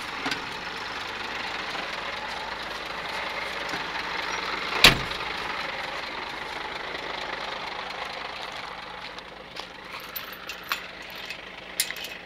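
Scania 124L truck's straight-six diesel idling steadily, with one loud sharp bang about five seconds in. From about nine seconds in the engine sounds further off, and a gate's chain latch gives a series of light metallic clinks.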